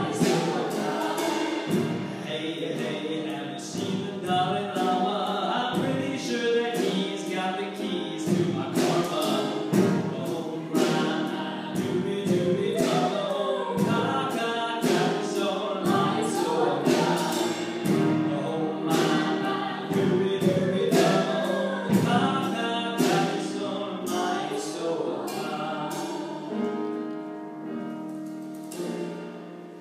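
Choral music: a choir singing, fading out near the end.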